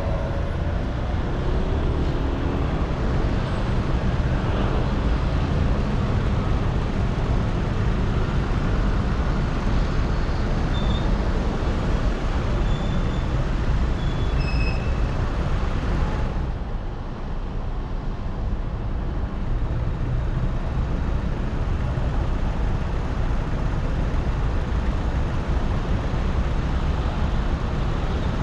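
Street traffic noise at a red light: vehicles idling and moving in the queue, a steady low rumble. A rising engine note right at the start, a few short high chirps midway, and the higher hiss easing off a little past halfway.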